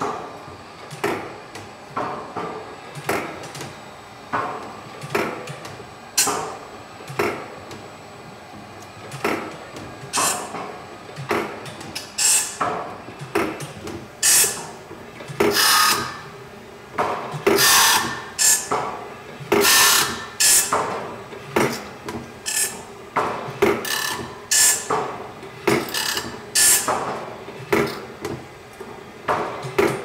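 Armstrong No. 5 automatic saw filer sharpening a band-saw blade: its grinding wheel comes down on one tooth after another as the blade indexes, a short rasping stroke about once a second. The strokes are quieter clunks at first and become louder, hissing grinds from about ten seconds in.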